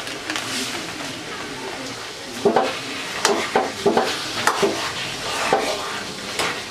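Flat metal spatula stirring sugar into jujube and tamarind pickle cooking in a karai over a steady sizzle. From about two and a half seconds in, the spatula scrapes and knocks against the pan about nine times.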